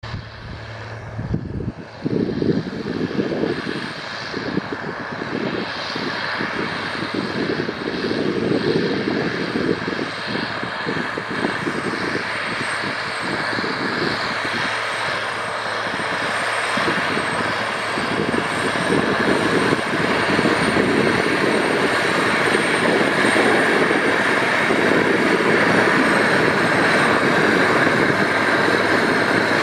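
John Deere 9520 articulated tractor's six-cylinder turbo diesel running steadily under load as it pulls a tillage implement through the soil, a continuous drone that grows louder as the tractor comes closer.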